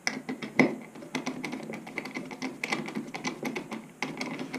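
Hand screwdriver driving a 6 mm screw through the metal edge guide into a 5.5 mm hole in a trim router's base plate: a steady run of small, irregular clicks and ticks.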